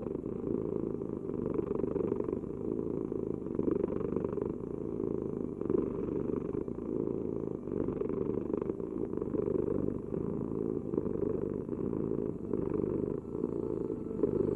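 Domestic cat purring steadily and close up, a low continuous rumble that swells and eases with each breath, about once every two seconds.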